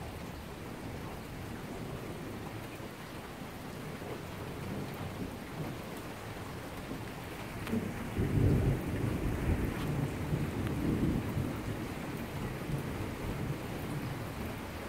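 Steady rain falling, with a rumble of thunder that swells about eight seconds in and rolls on for a few seconds.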